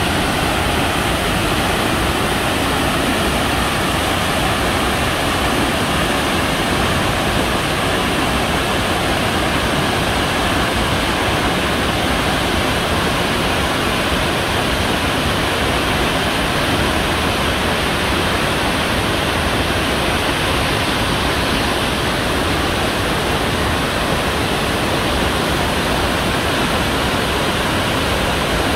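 Mountain waterfall and the torrent below it rushing over rocks: a steady, unbroken roar of falling water.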